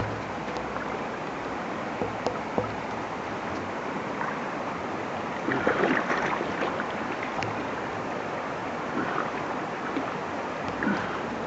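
Rushing river rapids around an inflatable pontoon boat, a steady water noise with a few sharp knocks and splashes. The loudest burst of splashing comes about halfway through.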